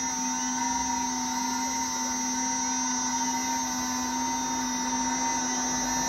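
DIY CNC router with a 2.2 kW spindle running: a steady machine whine with faint rising and falling tones as the axes move. This is the machine retracting off the tool-setting probe after its automatic tool measure, to start the cutting program.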